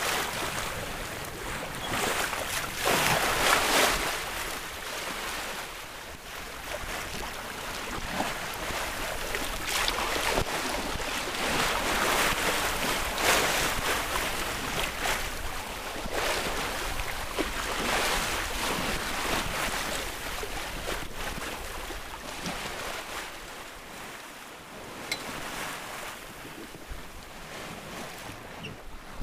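Water rushing and splashing along the hull of a C&C 39 sailboat under sail, swelling and easing every few seconds, with wind buffeting the microphone.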